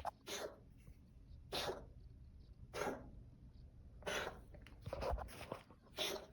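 Domestic cat coughing in a run of short, harsh hacks, about one a second. The owner puts the fit down to a hairball.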